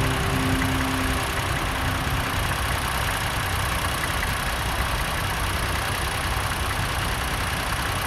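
Tractor engine running steadily at low revs, a low even throb. A held note of background music dies away about two seconds in.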